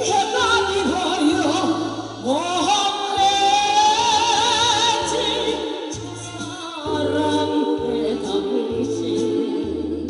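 A woman singing a Korean song into a microphone over backing music with a pulsing bass line. About two seconds in her voice slides up into a long held note with vibrato.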